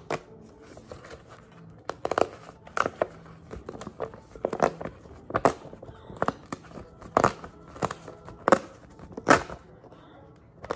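Paper tearing: the perforated edge strip of a Google AdSense PIN mailer being ripped off by hand in short tears, about one a second, with paper rustling between.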